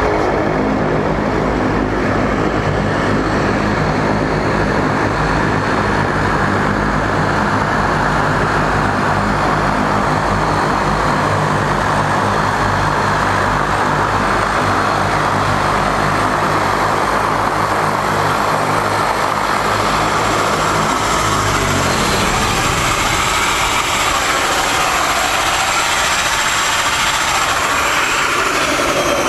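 De Havilland Canada Dash 8 turboprop running on the ramp: a steady low propeller drone with a rushing turbine hiss over it. About two-thirds of the way in, the low drone falls in pitch and dies away as the propellers wind down, while the hiss carries on.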